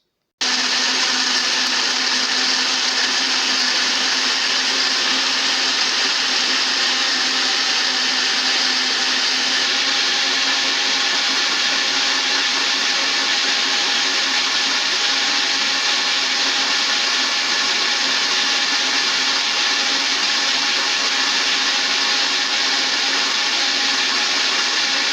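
Electric blender switched on and running at a steady speed, blending tomatoes and green pepper: a loud, even whir over a constant motor hum, starting abruptly about half a second in.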